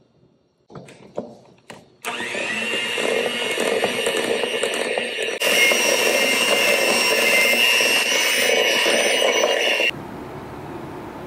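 Electric hand mixer running, its beaters whirring through butter and powdered sugar in a stainless steel bowl; it spins up about two seconds in, gets louder about halfway, and stops near the end. A few light knocks come just before it starts.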